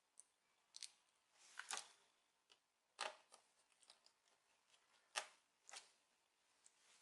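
Scattered light clicks and taps of hands and a tool handling a laptop's plastic and metal parts, about a dozen irregular strokes, the loudest a few seconds apart.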